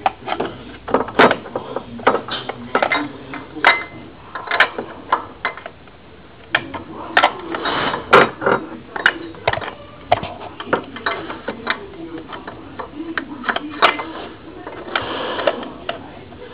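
Irregular metallic clicks and knocks as a toothed camshaft timing pulley is handled and worked onto the camshaft of a Toyota 3S-FE engine, rocked to find its locating pin.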